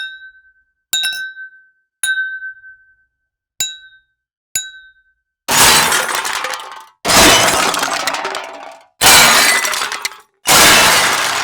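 Glass clinking five times, each a sharp tap ringing briefly at one pitch, about a second apart. Then glass breaking four times in a row, each a loud shatter that fades over a second or so.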